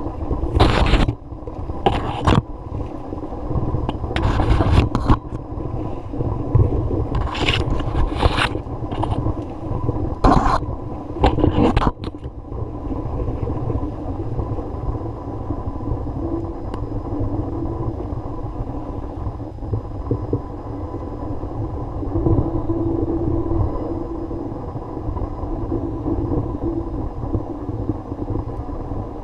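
A series of sharp scraping, rustling bursts through the first twelve seconds, over a steady low rumble that carries on alone afterwards.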